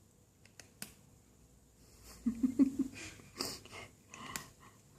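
Kitten crunching dry cat biscuits picked up from the floor: a few sharp clicks, then a louder stretch of crackly crunching in the middle mixed with a short low-pitched sound.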